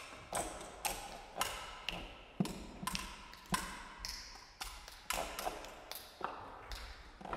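Marimba tapped and knocked softly in a sparse improvised passage: short dry taps at about two a second, fairly evenly spaced, some with a brief high ring.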